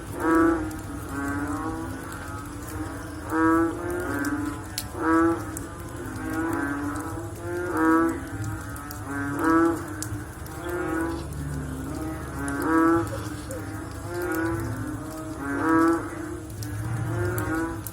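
A chorus of frogs calling, with overlapping pulsed calls repeating steadily; the loudest calls come about every second and a half.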